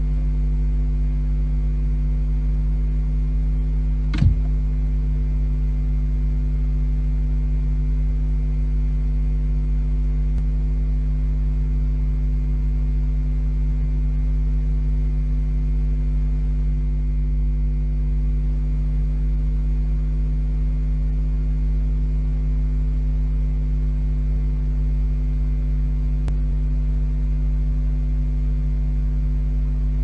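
Steady electrical mains hum from a nest-box camera's microphone, with one sharp knock about four seconds in.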